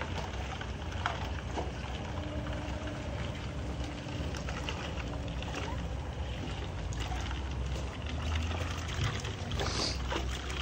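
Steady low rumble of a propane burner under a scalding pot, with well water running into a bucket and faint splashes as a plucked chicken is rinsed by hand.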